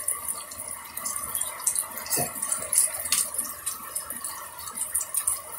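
Rain falling on a wet concrete rooftop: a steady hiss with many sharp drops splashing.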